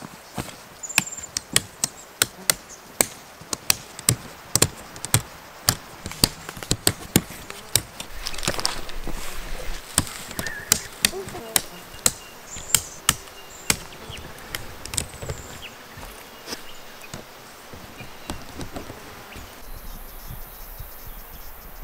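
Sharp clicks and clacks, irregular at about one or two a second, as jointed tent pole sections are knocked and snapped together and fitted into a canvas tent, with rustling of the canvas. The clicks thin out after about three quarters of the way through, and a high insect drone comes in near the end.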